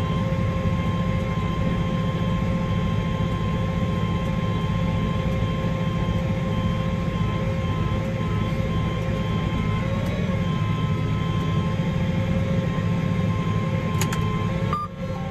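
Farm tractor engine running steadily, heard from inside the cab, with a steady high whine over the low drone. A single click near the end.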